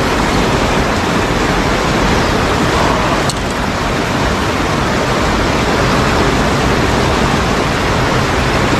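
Water rushing over a river weir's rocky spillway, a loud, steady wash of noise. A single small click sounds about three seconds in.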